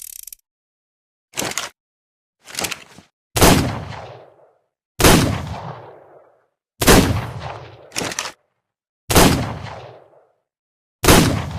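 Revolver sound effect: two short clicks, then five gunshots about two seconds apart, each dying away over about a second. A further short click falls between the third and fourth shots.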